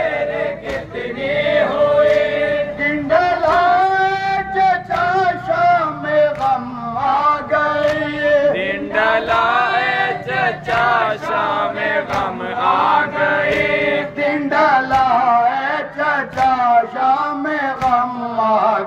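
A crowd of men chanting a noha, a Shia mourning lament, together in unison. Sharp hand slaps of chest-beating (matam) keep a steady beat under the voices.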